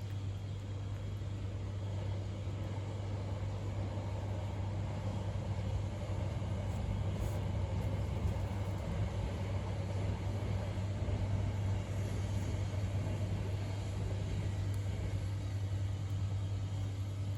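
A steady low hum and rumble under outdoor background noise, like nearby motor traffic.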